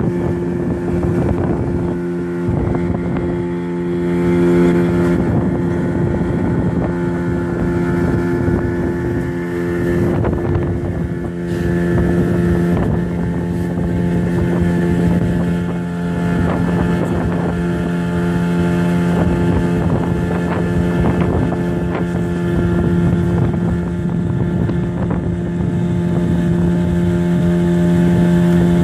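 Outboard motor of a small wooden fishing boat running steadily under way, holding an even pitch.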